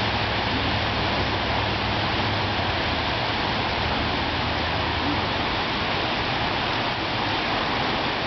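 Steady wash of small surf breaking and running up a sandy beach, an even rushing noise with no distinct events.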